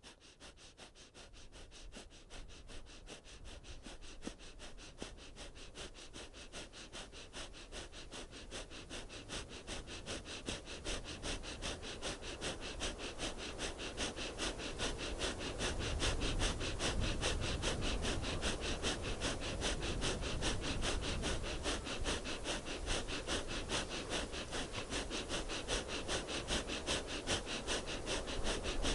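Breath of fire: a rapid, evenly paced run of short forceful sniffs and exhalations through the nose, a kundalini breathing exercise. It grows louder over the first half and then holds steady.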